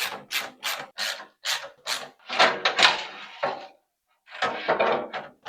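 Screwdriver working the mounting screws of a PC case fan: a quick run of clicks, about four a second, then longer rasping turns, with a brief break near the middle.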